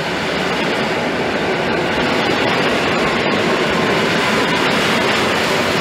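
EN57 electric multiple unit rolling past along the platform, a steady rumble of wheels and running gear that is loudest in the middle and starts to fade near the end as the last car goes by.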